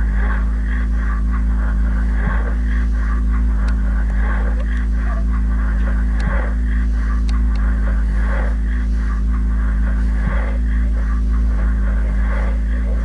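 Improvised voice-and-electronics music: a steady deep drone and sustained low tones under a rapidly flickering, static-like noise texture.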